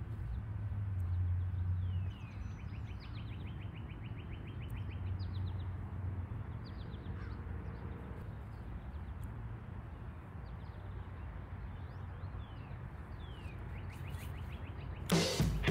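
Birds chirping and trilling in short falling calls over a steady low rumble of wind on the microphone. Music starts just before the end.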